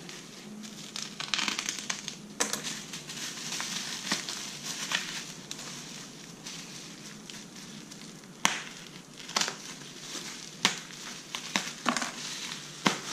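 Bubble wrap crinkling and rustling as it is unwrapped from a boxed exhaust silencer, with several sharp snaps along the way.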